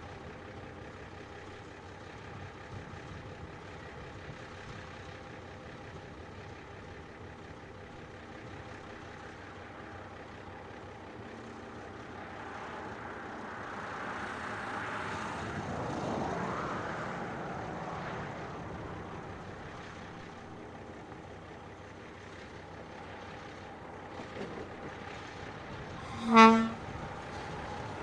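Brill Model 75 railcar running as it moves slowly, its engine note swelling about halfway through. Near the end comes one short horn toot, the loudest sound.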